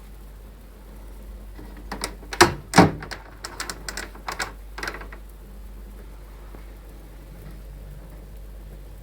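Gas valve of a BAXI Main 5 14F gas boiler knocking: a rapid run of clicks and knocks starting about two seconds in, the two loudest first, then smaller ones dying away a few seconds later, over a steady low hum.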